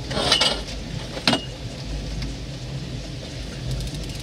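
Outboard engine of a small fishing boat idling in neutral with a steady low hum. Two short, sharp noises about a second apart stand out near the start.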